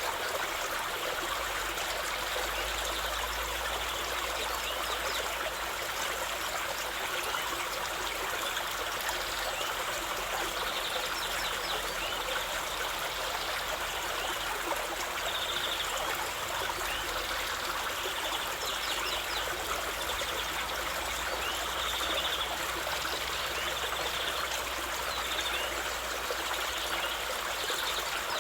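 Waterfall running steadily, with short bird chirps now and then.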